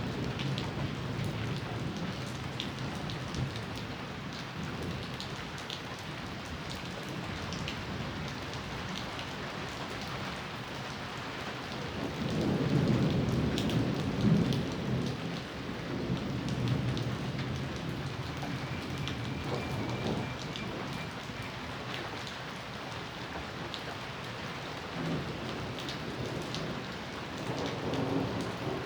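Steady rain falling, with scattered drops ticking, and thunder rumbling low: one long roll about halfway through and another building near the end.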